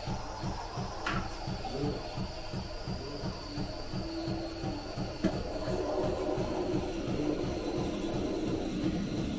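Background music with a steady low pulsing beat, about three beats a second.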